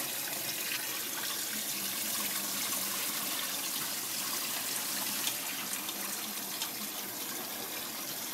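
Kitchen tap running steadily into a pot of water and pounded cassava leaves, rinsing the pondu, with the water splashing into the leaves.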